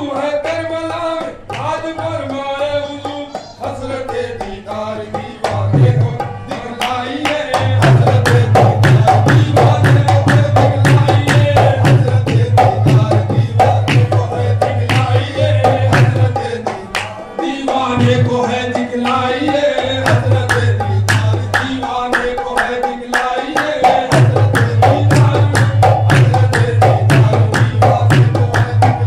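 Qawwali devotional music: a harmonium and men's voices singing, with hand claps and a drum keeping a quick, steady beat. The singing is clearest at the start and again about two-thirds of the way through.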